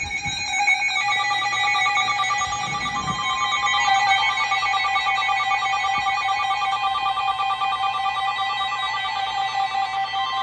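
Emergency alert attention tone sounding steadily before a severe thunderstorm warning: a harsh alarm of several steady pitches at once with a fast flutter, its mix shifting slightly about a second in.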